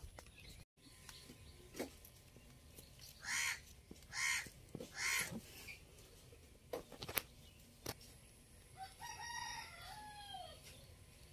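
Chickens calling faintly in the distance: three short clucking calls about a second apart, then a rooster crows once near the end, its call rising and then falling. A few light snaps fall between them.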